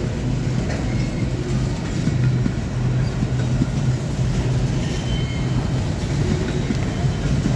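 CSX freight train rolling past with a steady low rumble.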